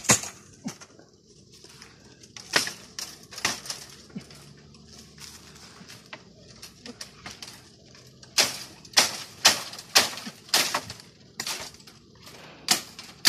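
Dry bamboo twigs and leaves rustling and snapping as someone pushes and climbs into a bamboo clump: irregular sharp crackles, a few at first, then a quicker run of them past the middle.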